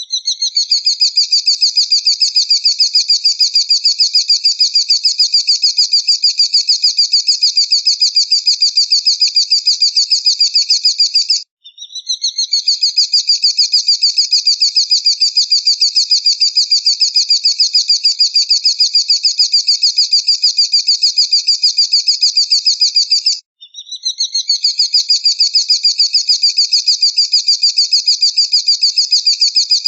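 A songbird's rapid, high trill: a fast, even run of notes held for about eleven seconds at a time. It breaks off twice and starts again each time with a short upward sweep.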